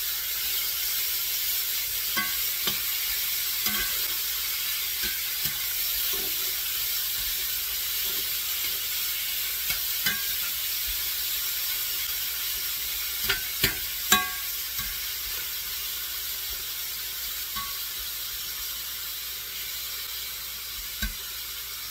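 Diced beef steak sizzling in butter and sunflower oil in a frying pan on high heat, the meat giving off water that is cooking off. A steady hiss with scattered sharp clicks, a few louder ones together about two-thirds through, growing slightly quieter near the end.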